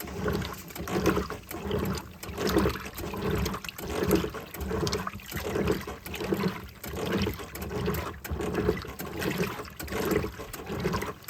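Homemaker 7 kg top-loading agitator washing machine agitating a load in water: rhythmic swishing and sloshing, about one surge a second.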